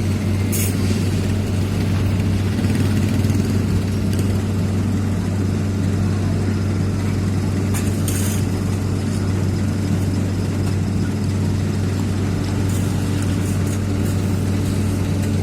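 Heavy diesel engine running steadily at a low, even hum, with a couple of brief metallic clicks.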